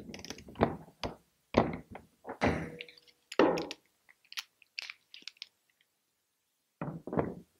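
Metal hand tools clicking and knocking as a half-inch-drive torque wrench and a container valve installation tool are lifted off the valve, pulled apart and set down on the plastic tote. The knocks come thick for the first few seconds, then a few faint ticks, then two more knocks near the end.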